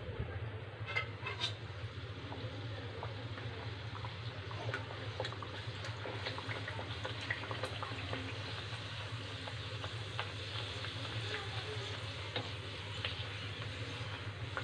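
Luchi dough deep-frying in hot oil: steady sizzling with frequent small crackles and pops, sharper pops about a second in.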